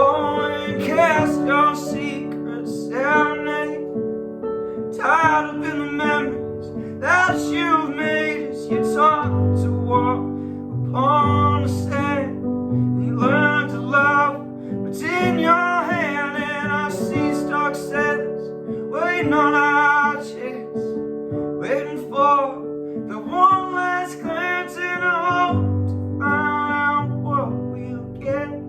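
Music: an instrumental passage of a song, with guitar and sustained low notes under a melody line in short, bending phrases.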